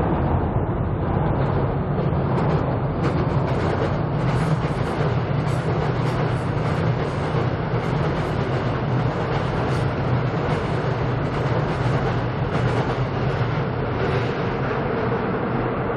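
Seoul Subway Line 7 train crossing Cheongdam Bridge: a steady low rumble with a rattling clatter of wheels and track that builds over the first few seconds and eases near the end.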